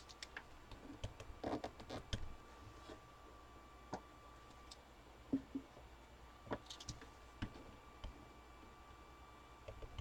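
Faint, scattered clicks and light knocks at irregular intervals, a second or so apart, over low room tone.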